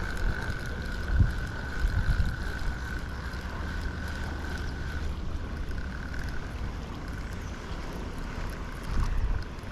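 Wind rumbling on the microphone while a small spinning reel is cranked to bring in a hooked fish. The reel's thin, steady whine stops about five seconds in, and there are a few soft knocks.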